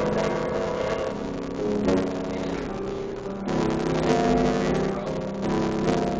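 Piano played live, with chords changing every second or so.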